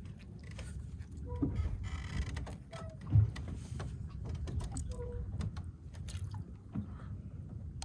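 Small clicks and taps of a hand fishing line and baited hooks being handled and fed out over a wooden boat's side, over a steady low wind rumble on the microphone. One dull thump about three seconds in.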